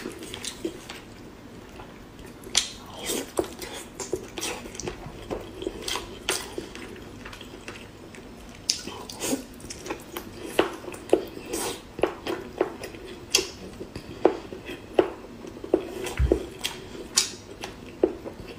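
Close-up eating sounds: wet chewing with sharp mouth clicks and smacks at an irregular pace, coming thicker in the second half.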